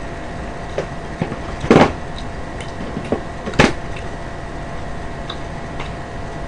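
Fried chicken being handled and pulled apart by hand at the table: a few short crackles and clicks, the loudest a brief crunch just under two seconds in and a sharp click about a second and a half later, over a steady low hum.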